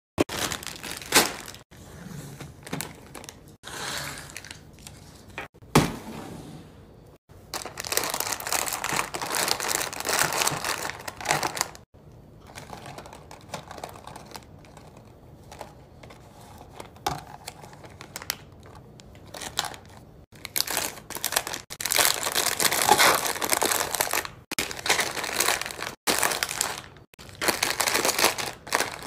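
Plastic snack wrappers and small candy packages crinkling as they are handled and set one by one into a plastic basket, in stretches of rustling with a few sharp taps in between.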